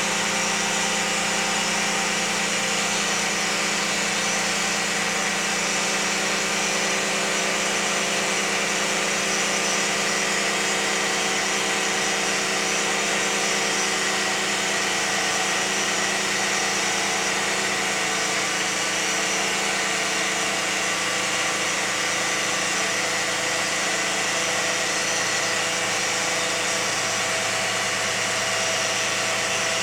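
2001 Lexus RX300's 3.0-litre V6 running steadily, with a constant whine over the engine note.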